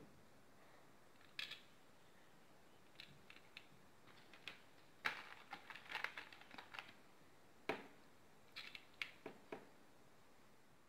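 Faint, scattered light clicks of small plastic fuse beads being picked up and set onto the pegs of a plastic pegboard, with a busier run of clicks about five to seven seconds in.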